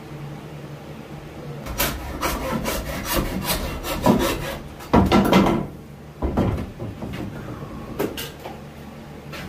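Hand saw cutting through the bone of a deer's antler skull plate in repeated back-and-forth rasping strokes, trimming the bottom of the plate, followed by a couple of knocks.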